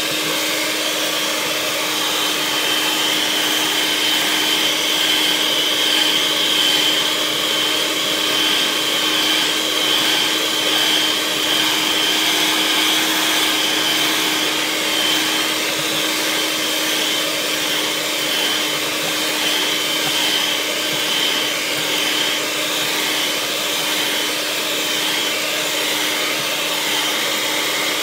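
Electric mixer running steadily, beating heavy cream and sweetened condensed milk to stiff peaks for an ice cream base. It makes an even motor whine with a steady low hum and no breaks.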